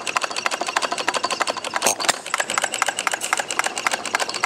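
Miniature 2.22 cu. in. bar-stock hit-n-miss engine running, a rapid train of sharp mechanical clicks, roughly eight a second, with one louder pop about two seconds in.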